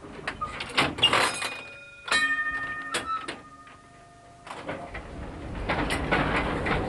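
Vintage electric tram heard from its driver's cab: clicks and knocks from the controls, then two metallic strikes about a second apart that ring on for a couple of seconds. Near the end the tram's running noise rises as it gets under way.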